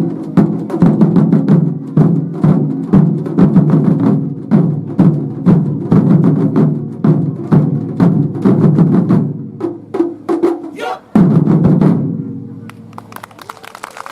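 Japanese taiko drums beaten hard in a fast, driving rhythm. The drumming breaks off briefly about ten seconds in, then comes back with a final loud flurry of strikes that rings out and fades away.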